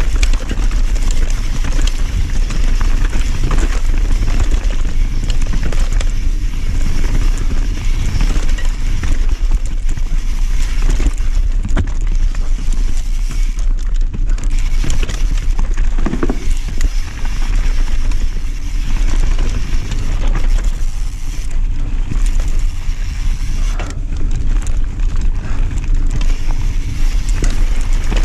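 Mountain bike ridden fast down a dirt and rocky trail: tyres running over stones and the bike rattling and clattering, under a steady rumble of wind on the microphone.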